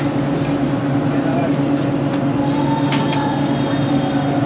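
Steady drone and hiss of a street-food griddle kitchen, with a couple of sharp clicks of a metal spatula on the iron tawa about three seconds in.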